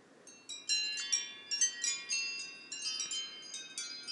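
Wind chimes ringing: an irregular run of clear, high-pitched strikes that overlap and ring on, beginning about a third of a second in.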